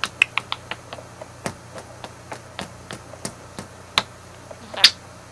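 A run of sharp, irregular taps or clicks, two or three a second, with a louder short squeak near the end.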